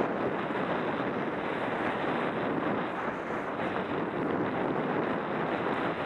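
Steady rush of wind on a Contour Roam 2 action camera's microphone during a downhill ski run, mixed with the hiss of skis sliding over packed snow.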